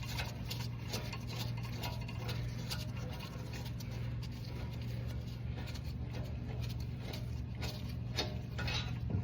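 Light metallic clinks and rattles as the brake caliper is worked off the mount and hung on a brake hanger, with a steady low hum underneath.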